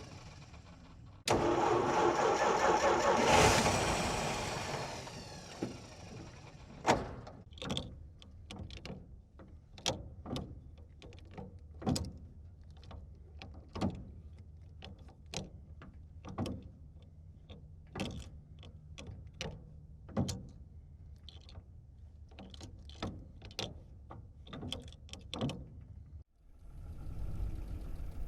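1937 Plymouth flathead six being cranked by its starter for about three seconds without catching, a failed start. Then a long run of dry gear shifts with the engine off: the gear lever and linkage clunk and click into each gear, one sharp knock at a time, roughly one a second. Near the end the engine is heard running from inside the car.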